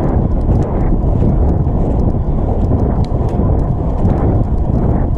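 Steady loud rumbling noise with scattered faint clicks.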